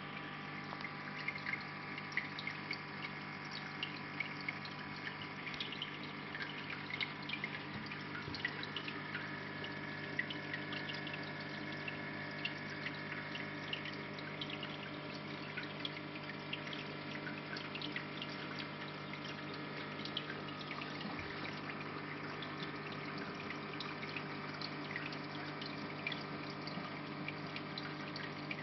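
Reef aquarium's water circulation running: a steady pump hum under trickling, splashing water, with frequent small ticks.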